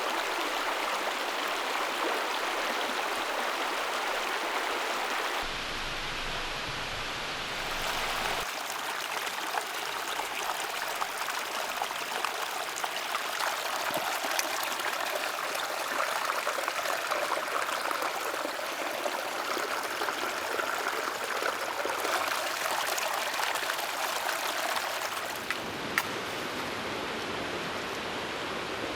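Flowing water, like a stream running: a steady rushing noise that shifts abruptly in character a few times.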